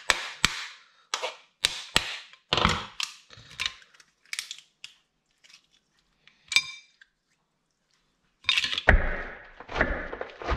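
Cooked lobster shell being cracked and picked apart by hand: a run of short cracks and snaps, then one ringing clink about six and a half seconds in. From about eight and a half seconds, crisp crunching of iceberg lettuce being cut with a knife on a wooden chopping board.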